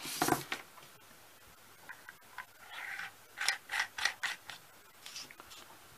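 Small aluminium flashlights being handled: a series of light clicks and scrapes of metal parts, busiest in the middle.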